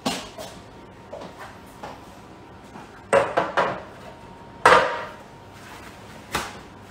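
Irregular knocks and clatter of kitchen equipment being handled and set down on a hard worktop, about half a dozen short hits, with a cluster a little past three seconds in and the loudest just under five seconds in.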